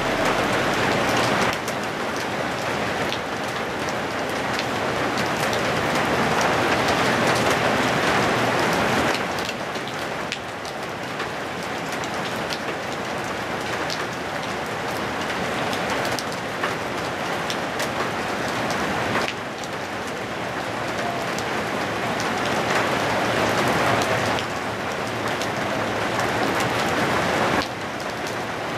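Heavy rain falling steadily, with scattered sharp drop ticks. The level shifts abruptly a few times.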